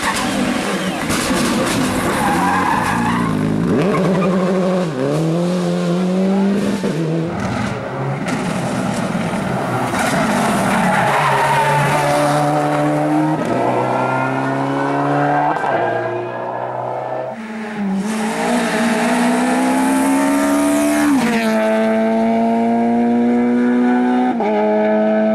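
Rally car engine revving hard and shifting gears repeatedly, its pitch climbing and then dropping back at each shift, with tyre skidding noise.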